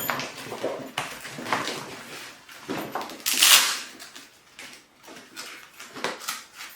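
Heavy waterproof PVC dry bag and its carry straps being handled: irregular crinkling and rustling with a few knocks, loudest about three and a half seconds in.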